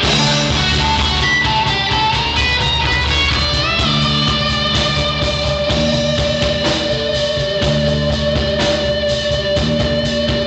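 Live rock band playing: electric guitars, bass guitar, keyboard and drum kit. A lead line slides upward about four seconds in, then holds one long note.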